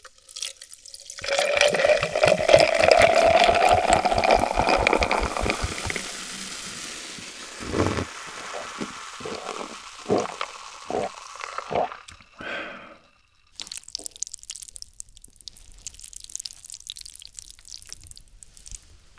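Coca-Cola poured from a plastic bottle into a glass jar: glugging, with a tone that rises as the jar fills, then fizzing as the pour stops. A run of swallowing gulps follows as it is drunk. Near the end there are soft wet, sticky sounds from the sauced noodles being handled.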